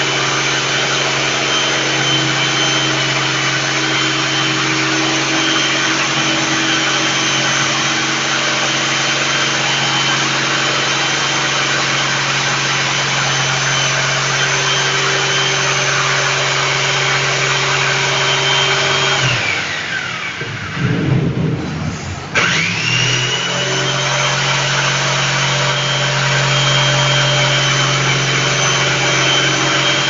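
Electric jigsaw running steadily as it cuts a round speaker hole in the wooden top of a speaker box, with a high whine over the motor. About two-thirds of the way through, the motor winds down and stops, then winds back up about three seconds later and cuts on.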